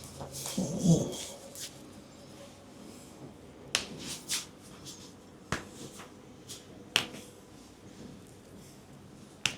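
Hand sounds from an Indian barber's head massage. A dull thump comes about a second in, then about five sharp, isolated snapping clicks follow at irregular intervals.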